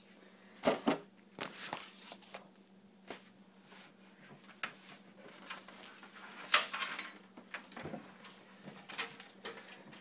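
Handling noises as a steel PC case is turned upright and set down on a table: scattered knocks and bumps with brief rustling, the loudest pair of knocks about a second in and another sharp knock past the middle, over a faint steady low hum.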